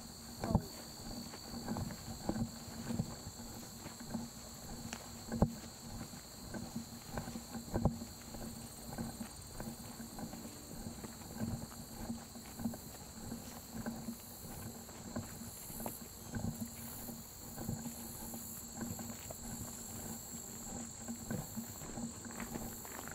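Footsteps of people walking along a woodland dirt trail, an uneven tread of soft steps about once or twice a second, over a steady high-pitched hum.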